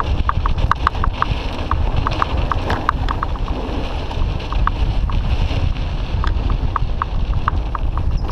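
Wind buffeting the microphone of a GoPro on a mountain bike moving fast down dirt singletrack, over a steady rumble of tyres and trail, with a run of short light ticks, a few a second.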